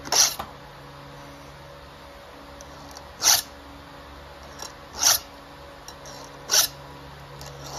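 Round file rasping across a chainsaw chain's cutter tooth to sharpen it, in four short strokes spaced about a second and a half apart.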